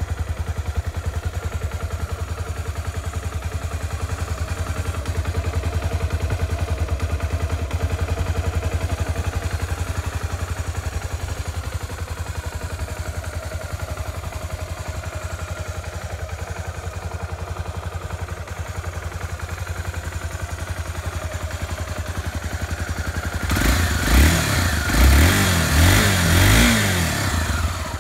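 Honda XR250 Tornado's single-cylinder four-valve engine idling steadily, then revved in several quick blips near the end.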